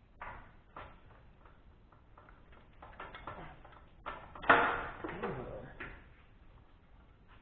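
Scattered clicks and knocks of tools and metal parts being handled, with a louder clatter and a short falling scrape about four and a half seconds in. No engine is running.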